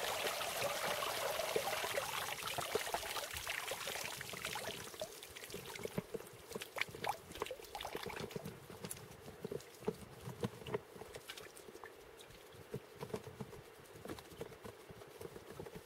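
Water trickling and pouring in an open ice-fishing hole as line and gear are handled in it. This fades after a few seconds into scattered small clicks and taps of handling.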